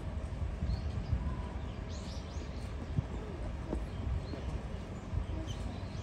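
Low, steady outdoor rumble, like wind on the microphone, with a few faint, short chirps of small birds scattered through it.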